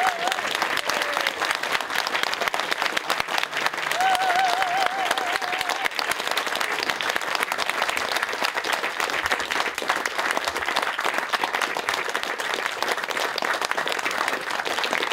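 Audience applauding: many hands clapping in a dense, steady patter. A brief wavering high tone rises over it about four seconds in.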